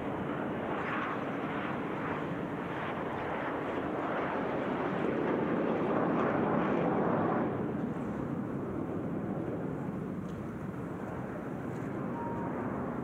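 Jet noise from the Frecce Tricolori's Aermacchi MB-339 jets flying past, a dense rushing sound that builds to a peak about six to seven seconds in and then falls away sharply.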